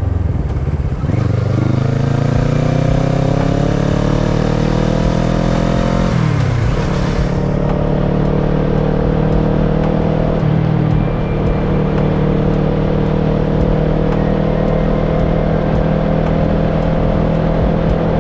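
Kawasaki ER-6n's parallel-twin engine pulling hard in gear, its pitch rising for about five seconds. The pitch drops sharply at an upshift about six seconds in, and the engine then runs at a steady cruise.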